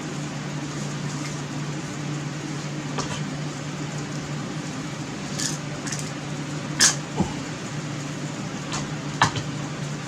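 Steady low hum of a room fan or air conditioner, with a handful of light clicks and knocks from handling a pistol crossbow and paracord, the sharpest about seven seconds in.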